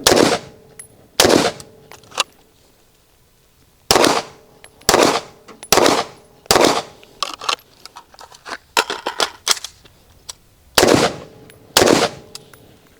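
Eight gunshots in a timed rifle-and-pistol transition drill: two rifle shots a little over a second apart, a pause, four pistol shots in quick succession, a run of light metallic clicks from the rifle being reloaded, then two more rifle shots.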